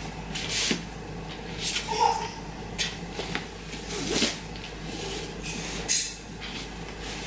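Folded fabric bedding and its satin ribbon being handled and untied, in several short, irregular rustles.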